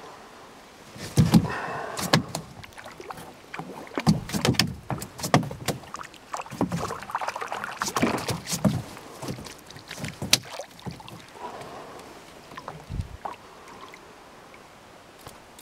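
Irregular knocks, clunks and rattles of gear and a fishing rod against a canoe's hull and the crate on its floor as things are handled in the boat. They are busiest in the first ten seconds and thin out near the end.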